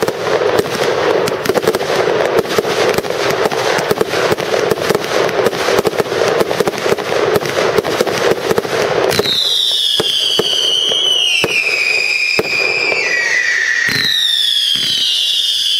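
Fireworks display: a dense crackle of many small pops for about nine seconds, then several loud whistling effects, each falling and wavering in pitch.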